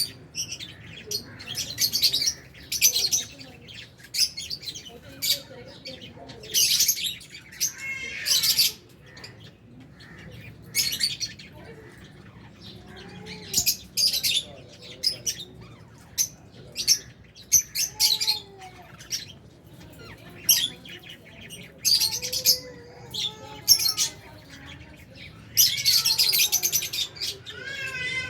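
A flock of lovebirds chirping and squawking: many short, shrill calls at irregular intervals, with fainter warbling notes between them.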